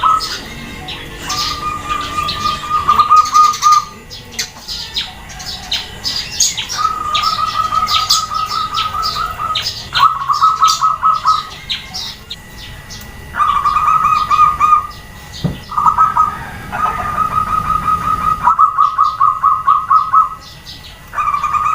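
Zebra doves (perkutut) cooing: about eight phrases of quick, evenly pulsed coos, one after another from more than one bird. High chirps of small birds run over the first half.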